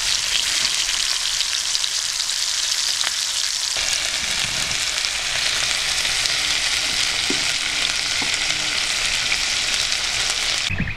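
Meat sticks frying in a pan: a steady, loud sizzle of hot fat that stops abruptly near the end.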